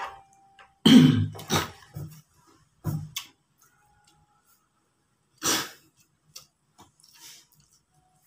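A man coughing and clearing his throat in several short bursts, the loudest about a second in and another about five and a half seconds in.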